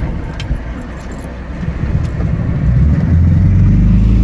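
ZAZ-965 Zaporozhets's rear-mounted air-cooled V4 engine running as the car drives over a rough, muddy road, pulling harder and growing louder about three seconds in, with a few light knocks from the body over the bumps.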